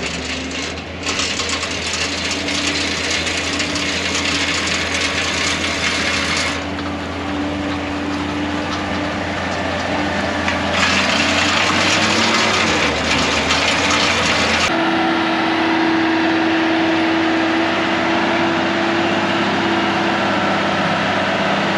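New Holland Stackliner bale wagon working: its engine runs steadily, with two stretches of louder scraping, rushing noise from the machinery. Near the end of the second stretch the low rumble drops away and a steadier, higher hum takes over.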